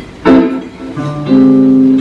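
Jazz guitar on a hollow-body electric archtop, played through a small amp in a slow blues. A sharp chord comes about a quarter second in, then notes held ringing from about the middle.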